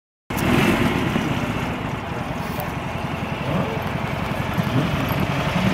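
Vehicle engine running, loud and steady with a heavy low rumble, cutting in abruptly just after the start.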